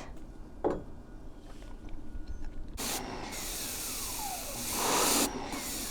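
Pressure washer spraying water: a loud hiss starts about three seconds in and swells louder near the end.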